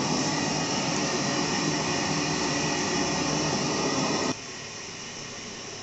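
Steady loud rushing noise that drops suddenly to a quieter steady hiss about four seconds in.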